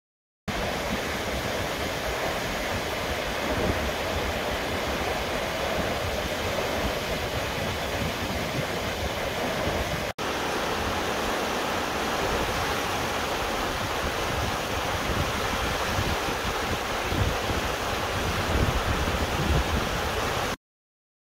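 Turbulent water rushing through a fish pass of stone baffle blocks and over a river weir, a steady rush that breaks off for an instant about halfway through.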